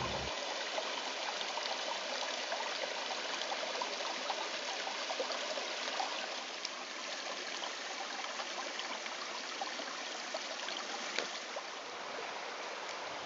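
Shallow creek running over stones: a steady trickling hiss of water.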